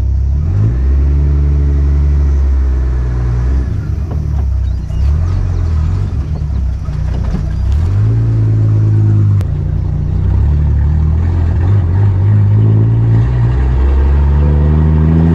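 Ford Ranchero pickup's engine pulling away and accelerating, its pitch climbing in several steps.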